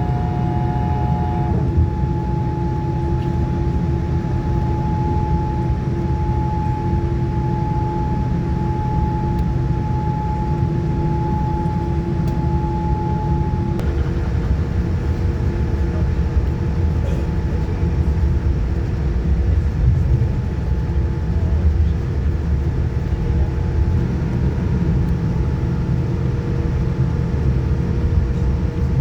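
Cabin noise of a Boeing 787-9 on the ground before takeoff: a steady low rumble with a few steady hums, one of which drops out and is replaced by a lower hum about halfway through.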